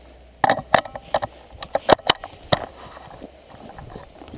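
A quick, irregular run of sharp clicks and knocks over about two seconds, beginning about half a second in, the loudest near the middle.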